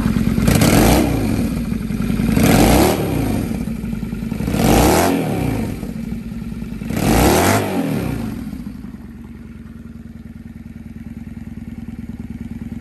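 Honda Steed 400 VLX V-twin through slash-cut mufflers, blipped four times about two seconds apart, each rev rising and falling back, then settling to a quieter steady idle.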